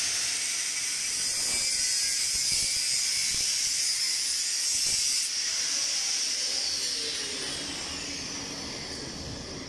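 Angle grinder with a cut-off disc cutting through a metal railing tube, a steady high-pitched whine and hiss. About five seconds in the cut stops, and the pitch then falls away as the disc winds down.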